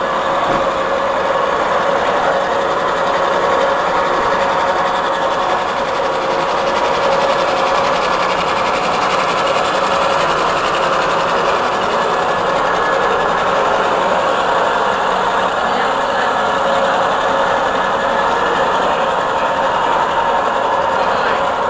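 Model diesel locomotives running on the layout's track: a steady mechanical whir of electric motors and gearing with wheel noise, holding an even pitch and level throughout.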